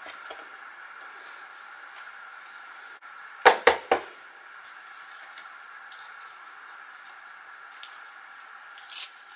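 Three quick knocks of a card card being handled and set against a cutting mat about three and a half seconds in, then a short papery crackle near the end as the backing is peeled off 3D foam adhesive.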